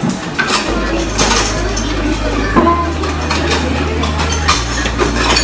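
Tableware clinking at a hot-pot meal: chopsticks and utensils knocking against plates, bowls and the pot in a run of sharp clicks.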